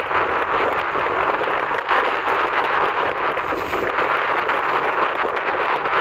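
Steady rushing of wind over an open coast, buffeting the microphone and rising and falling slightly in loudness.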